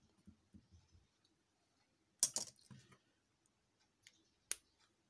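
Faint scratch of a pen writing on paper, then a single sharp click about two seconds in and a smaller click near the end.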